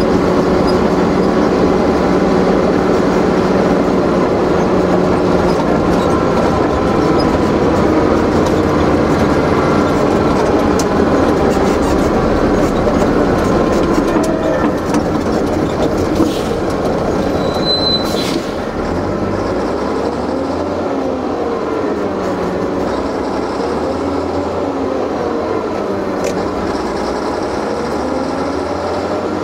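Engine and road noise of a vehicle being driven, heard from inside the cab. In the last third a tone slowly rises and falls every couple of seconds.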